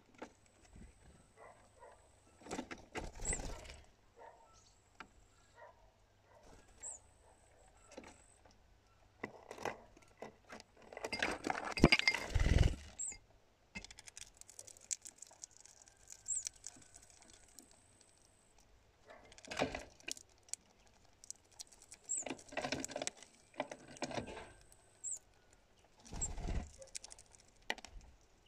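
Hawfinch pecking in a glass cup feeder: irregular taps, clicks and clinks of beak and claws on the glass, with a louder bout of knocking and scrabbling about twelve seconds in.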